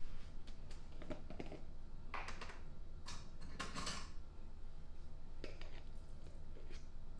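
Containers handled at a kitchen counter: a jar of Duke's mayonnaise is picked up and its screw lid twisted open. The result is a few short scrapes and clicks, the loudest a couple of seconds in.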